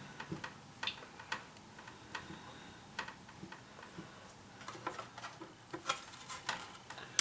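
Irregular light clicks and taps as humidifier parts and tools are handled during a repair, sparse at first and coming more often in the second half.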